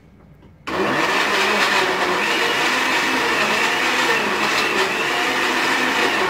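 Countertop blender switching on less than a second in and running steadily, mixing a batter of banana, eggs, flour, sugar and milk.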